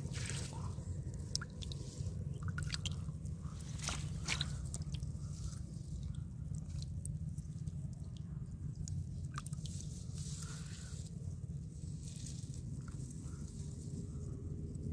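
Wet squelching and small splashes of a hand working in shallow muddy water and grass to grab a climbing perch. Scattered sharp clicks sound over a steady low rumble.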